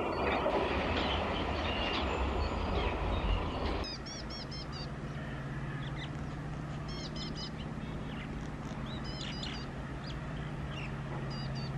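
A freight train rumbling away along the track. About four seconds in it gives way to birds chirping in short repeated calls over a steady low hum.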